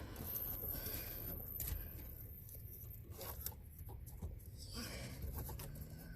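Shifter cable being pulled out from behind the dash: faint rustling and scraping, with a few light clicks.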